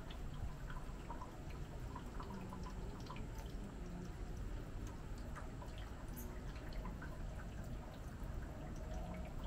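Irregular dripping and small ticks, scattered and uneven, over a low steady rumble.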